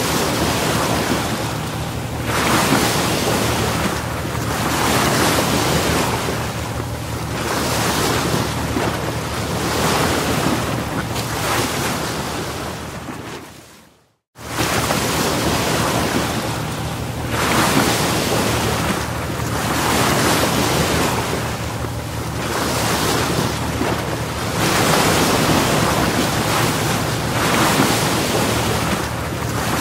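Ocean waves washing in, a loud rushing noise that swells and eases every two or three seconds, with wind on the microphone. It fades out completely about halfway through and comes straight back.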